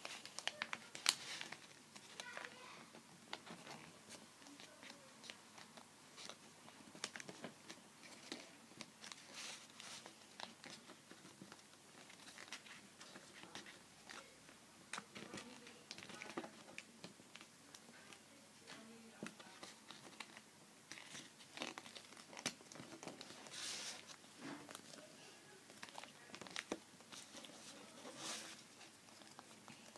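Sheet of paper being folded and creased by hand for an origami boat: faint, irregular crinkling and rustling strokes.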